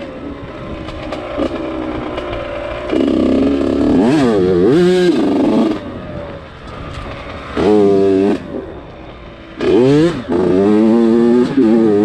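Yamaha YZ85 two-stroke dirt bike engine being ridden, at part throttle between three harder pulls. Each pull rises in pitch as the throttle opens: a long one about a third of the way in, a short one past the middle, and another toward the end.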